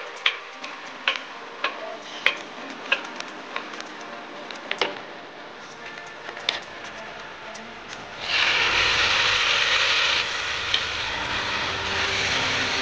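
Chopped onion frying in hot oil in a pan, with irregular sharp pops and crackles of spattering oil. About eight seconds in, a loud, steady sizzle starts suddenly as chopped green herbs go into the hot oil.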